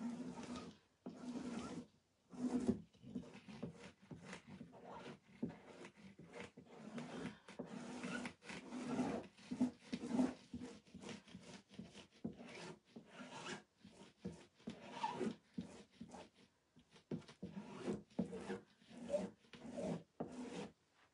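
Squeegee scraping chalk paste across a silkscreen stencil on a burlap board, in many short, uneven back-and-forth strokes with brief pauses.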